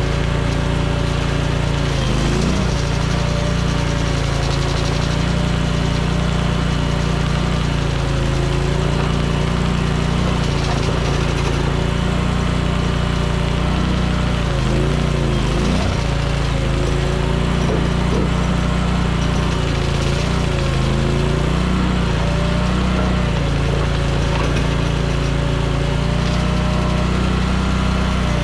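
Mini skid steer's engine running with a hydraulic flail mower spinning on the front, cutting brush. The pitch sags and recovers a few times.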